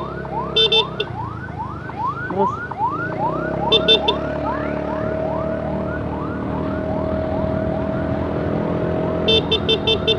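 Ambulance siren sounding a fast rising yelp, about three sweeps a second, over motorcycle and traffic noise. Short, rapid horn beeps come in bursts near the start, around four seconds in, and again near the end.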